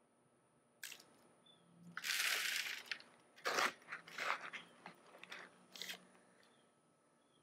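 Dry, crumbly lamproite gravel being scooped and dropped onto the wire mesh of a stacked sifting classifier. A gritty pour comes about two seconds in, then a sharp knock and a few shorter crunches.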